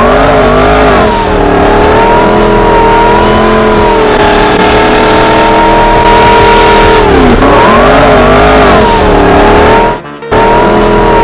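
Engine sound effect laid over the picture, since the diecast models have no motor: an engine pitch revs up and back down about a second in, holds steady, then revs again about seven seconds in, and cuts out briefly near the end. Music plays along with it.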